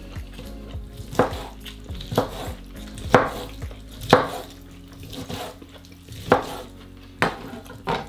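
Kitchen knife slicing through cooked lobster tail meat and knocking down onto a wooden table, a series of sharp, irregularly spaced cuts.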